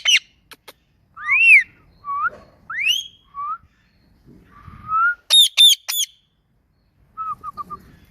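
Ringneck parrot calling in a string of whistles: sharp chirps, arching and rising whistled calls, three quick shrill high whistles, then a short run of four rapid notes near the end.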